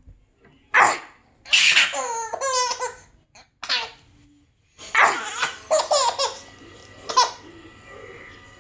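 A baby laughing in several bursts of giggles, some with quick rapid pulses, separated by short pauses.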